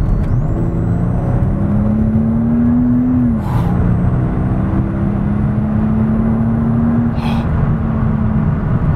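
The twin-turbocharged V12 of a 2009 Mercedes-Benz SL65 AMG Black Series, heard from inside the cabin while accelerating. Its pitch climbs, drops with an upshift about three seconds in, then climbs again more slowly, over loud tyre and road noise.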